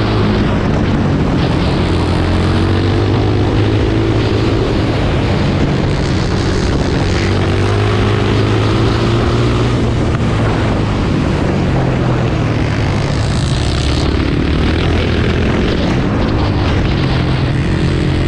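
Yamaha racing quad's engine at race pace, heard from on board, its pitch rising and falling as the throttle is worked through the corners, with a steady rush of wind noise.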